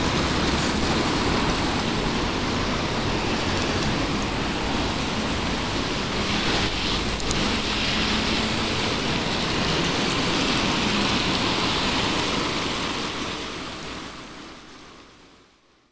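Steady rushing wind and road noise on a bicycle-mounted camera's microphone while riding on a wet road, with traffic passing. It fades out over the last few seconds.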